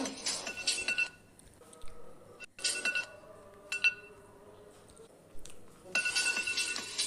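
Jingly alarm ringtone: rapid bright chiming beats over two steady high tones. About a second in it breaks off for some five seconds, leaving only a few scattered clinks and soft tones, then resumes near the end.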